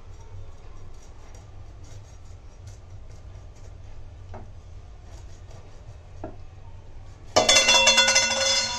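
Faint scraping strokes of a curved sickle-like blade working over a barramundi on a wooden board as the fish is cleaned. About seven seconds in comes a sudden loud clang of a metal utensil that rings out with a clear pitch for over a second.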